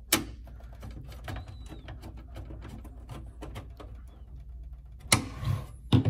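Screwdriver driving a Phillips screw into the metal expansion-slot bracket of a PC case, giving a run of small clicks and ticks. A sharp click comes at the start, and there are louder knocks against the case near the end.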